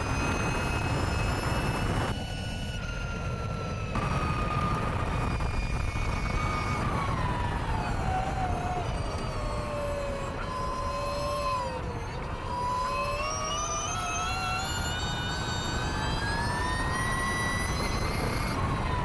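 Ducati V21L electric racing motorcycle at speed, heard on board: a high whine from its electric motor and drivetrain. The whine falls steadily to its lowest about twelve seconds in as the bike slows and leans into a corner, then rises again as it accelerates out. Under it runs a steady rush of wind.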